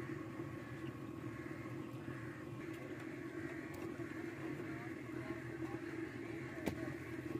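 Battered fish pieces deep-frying in a karahi of hot oil: a steady sizzle over a low steady rumble, with one sharp metal click near the end as the spatula knocks the pan.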